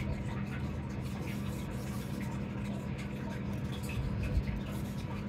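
A steady low hum with faint small ticks and rustles over it.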